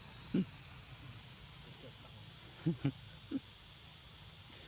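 Steady high-pitched drone of an insect chorus, with a few short, low calls over it in the first three and a half seconds.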